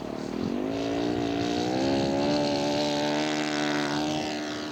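Radio-controlled scale model Nieuport 11's engine running, rising in pitch over the first couple of seconds and then holding a steady high-throttle note.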